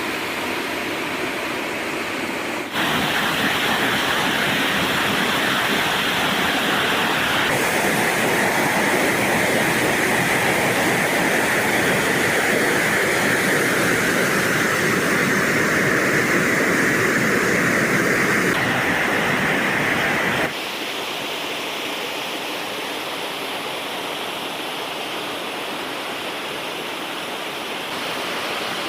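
Steady rushing of a waterfall's falling water. The roar jumps louder about three seconds in and drops back abruptly about twenty seconds in, as the shots change.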